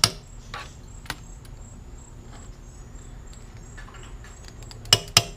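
Sharp knocks and clanks of kitchen utensils against cookware: a few lighter clicks near the start, and two loud knocks in quick succession near the end, over a steady low background.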